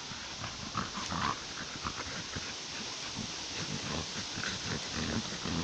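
Two American Staffordshire terriers digging and snuffling with their noses in loose soil and dry leaves. It is a run of irregular short scratching and sniffing noises.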